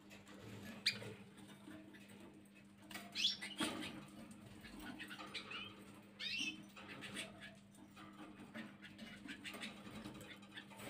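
Gloster canaries in a wire cage giving short chirps, a brief burst about three seconds in and another about six seconds in. Light clicks and pattering from the birds hopping on the perches and cage bars run between the chirps.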